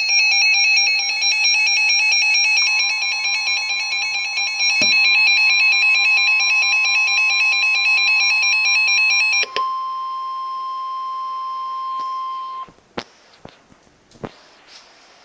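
Emergency Alert System alert tones for a flash flood warning. A loud electronic alarm of several tones pulses rapidly for about nine and a half seconds, then gives way to a single steady tone of about three seconds, which cuts off suddenly. A few sharp clicks follow.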